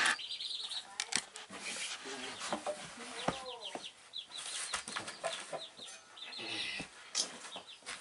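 Baby chicks peeping: many quick high chirps, some sliding down in pitch, with a few sharp clicks among them. The white noise machine's steady hiss cuts off suddenly at the very start.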